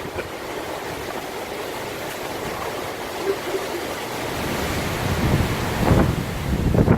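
Hurricane wind blowing hard, with gusts buffeting the microphone. The gusts grow stronger and rumble heavily in the last two seconds or so.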